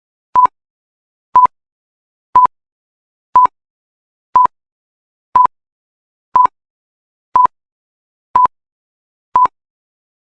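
Ten short electronic beeps of one steady pitch, evenly spaced one a second, from a workout interval timer counting down the break between exercises.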